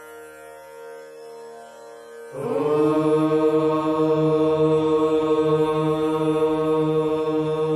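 A soft, steady instrumental drone, then about two and a half seconds in a long chanted "Om" begins, much louder and held on one steady pitch over the drone.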